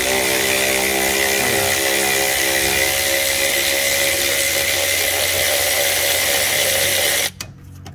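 Snap-on 3/8-inch extended ratchet running steadily under power, spinning the broken-loose nut off the rusty shock absorber's stud. It gives a steady high whine over a hiss and cuts off sharply a little after seven seconds.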